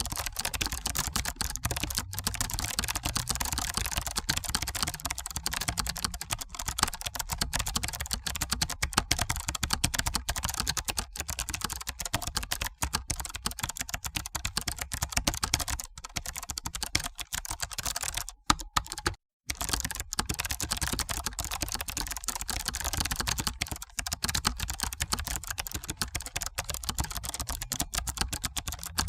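Continuous fast typing on a computer keyboard: dense, rapid keystroke clicks that stop for about a second around two-thirds of the way through, then resume.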